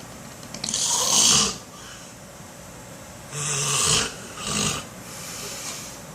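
A man snoring loudly in his sleep: a long rasping snore breath, then after a pause another that starts with a low buzzing rattle and ends in a short puff of breath.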